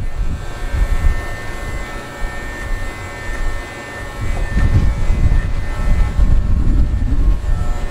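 Electric dog grooming clippers running with a steady buzz, with low rumbling handling noise that grows louder about four and a half seconds in.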